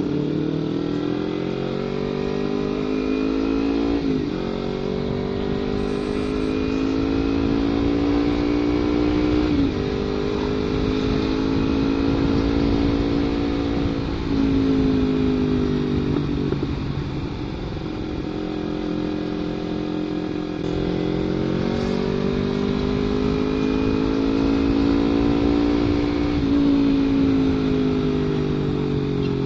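Kawasaki Ninja 250 FI parallel-twin engine running through an aftermarket CLD header and Prospeed Black Series silencer, its engine speed rising and falling in long sweeps with several sudden breaks in pitch.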